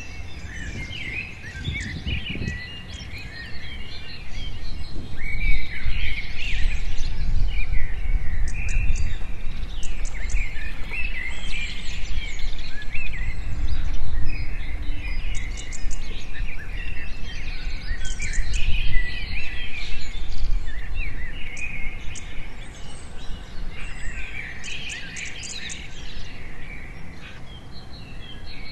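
Many small birds chirping and trilling, with a low rumble that swells a few seconds in and fades after the middle.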